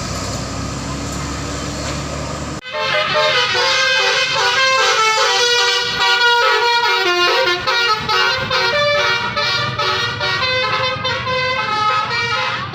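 Bus engine and road noise, then about two and a half seconds in a telolet 'basuri' musical bus horn starts suddenly and plays a quick tune, its notes stepping up and down.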